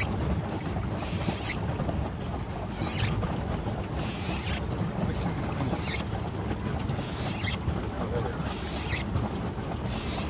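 Pedal boat's paddle wheel churning the water as it is pedalled: a rhythmic swish that swells and cuts off about every second and a half, over a steady low rumble.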